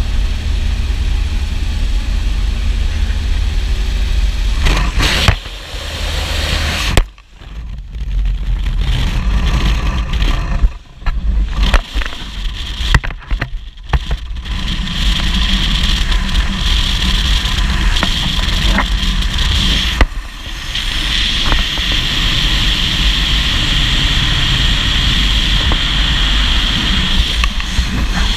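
Single-engine light aircraft's propeller engine droning inside the cabin, with wind rushing past the open door. About a third of the way in the sound drops out and flutters several times. Then a loud, steady rush of slipstream wind over the engine takes over while a jumper climbs out onto the wing strut.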